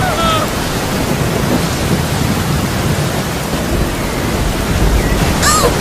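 Loud, steady rushing noise with a deep rumble underneath.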